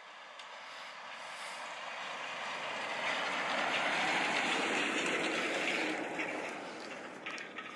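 Tanker truck passing along a dirt road: its engine and tyre noise grow louder, peak about halfway, then fade as it drives off.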